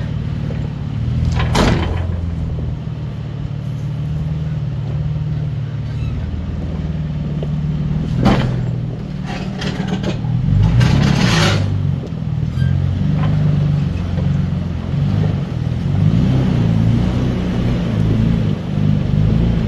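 Toyota off-road vehicle's engine running at low revs while crawling over rocks, its speed rising and falling with the throttle. A sharp crack sounds about a second and a half in, another about eight seconds in, and a longer rushing noise around eleven seconds.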